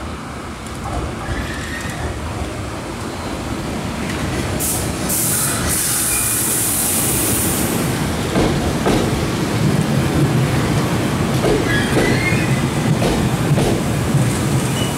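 Nose Electric Railway 1700 series electric train running past along the platform. The wheels rumble on the rails, growing louder, with a few brief high wheel squeals and a short hiss about five seconds in.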